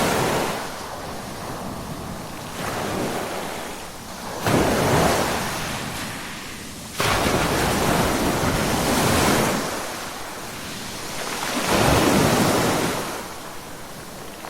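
Ocean waves breaking on a shore, the surf surging and easing every few seconds, with sudden crashes about four and a half and seven seconds in and a slower swell near the end.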